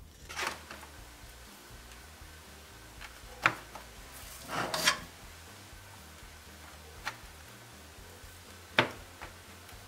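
A spoon scraping thick chestnut and biscuit filling out of a metal pot and dabbing it onto a wafer sheet, with a few sharp clinks of the spoon against the pot. A dry rustle of the wafer sheet being laid down comes about half a second in.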